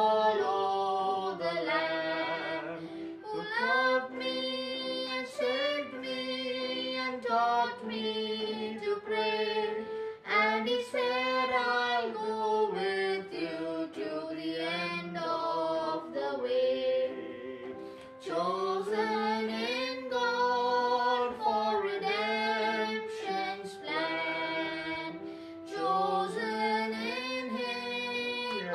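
A boy singing a hymn solo, phrase after phrase with short breaths between lines.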